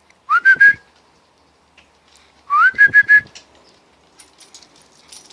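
Rubber squeaky dog toy squeezed in a Field Spaniel's jaws. It squeaks in two quick bursts about two seconds apart, each a rising squeak followed by a few rapid squeaks at the same pitch.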